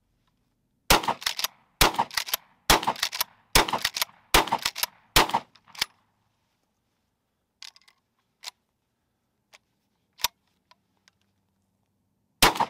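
Rock Island All Gen 12 pump-action 12-gauge shotgun fired rapidly six times, about one shot a second, with the pump clacking between shots. A pause with a few faint clicks follows, then one more shot near the end.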